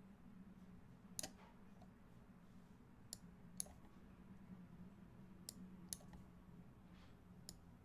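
About six sharp, scattered clicks, typical of computer input at a desk, over a faint steady low hum in a near-silent room.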